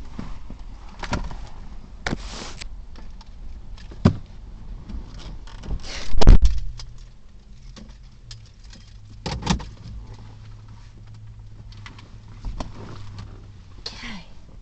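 Getting into a car: keys jangling and scattered handling clicks, a car door shutting with a loud thump about six seconds in, then the engine running with a steady low hum that steps up a couple of seconds later.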